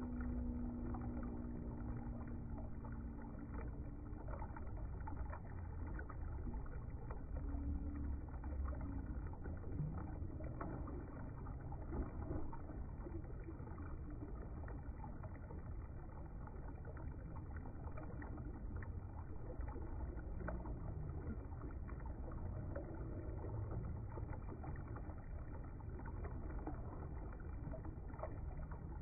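Shallow river flowing over a rocky bed: a steady rushing and rippling of water.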